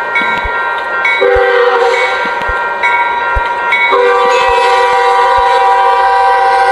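Diesel freight locomotive's air horn sounding a sustained multi-note chord that changes pitch twice, over faint low thuds about once a second.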